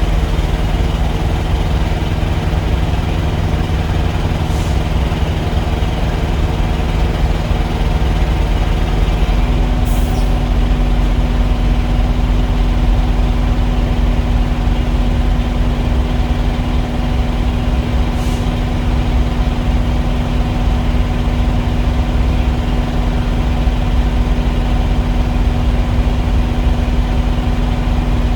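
Engine running steadily. About nine seconds in, its hum shifts to a higher steady pitch, and a few faint ticks sound over it.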